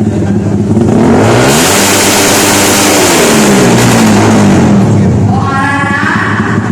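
An engine is revved hard through a loud, open exhaust pipe in a pipe sound test. The pitch climbs about a second in, then there is a very loud, harsh blast for several seconds while the pitch falls back. Near the end, voices or singing take over.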